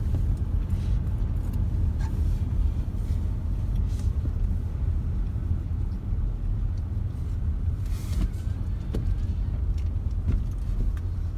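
Inside a moving car: a steady low rumble of engine and road noise while driving.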